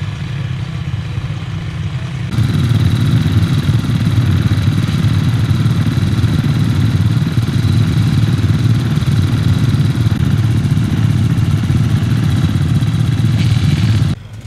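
Off-road motorcycle engines running steadily. The sound jumps sharply louder about two seconds in and cuts off abruptly near the end.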